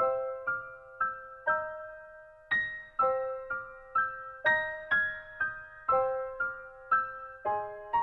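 Background music: a gentle piano melody played one note at a time, about two notes a second, each note ringing and fading before the next.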